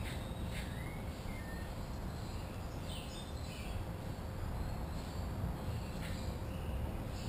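Birds chirping and whistling a few times over a steady low background rumble.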